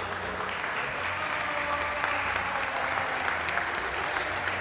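Audience applauding: many hands clapping together, growing louder about half a second in.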